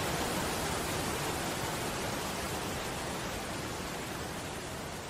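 Rushing water of a waterfall and fast stream: a steady, even hiss that slowly fades.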